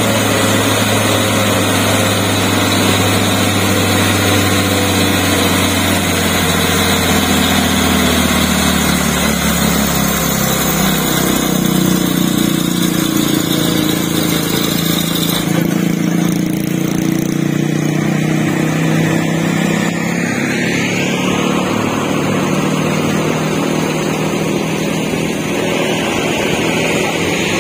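Mitsubishi Fuso tanker truck's diesel engine labouring under heavy load on a steep climb, a steady low drone that steps up in pitch a little over a third of the way in. The truck is struggling to make the grade. A rising whine comes about three-quarters of the way through.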